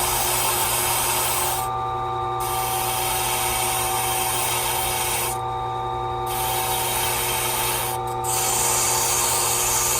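Silca Speed 045 key-cutting machine's motor running steadily while a freshly cut key is held against its spinning buffing wheel to clean off burrs, giving a rasping, brushing sound over the motor hum. The rasp breaks off briefly three times: about two seconds in, around five and a half seconds, and near eight seconds.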